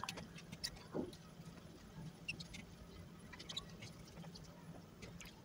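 Kitchen knife paring strips of skin off a zucchini: faint, scattered scrapes and small clicks, with the vegetable handled over a bowl.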